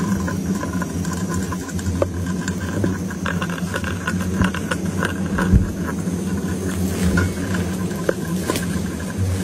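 A giant paper hornet nest being broken open with gloved hands, with scattered crackles, over a steady low drone.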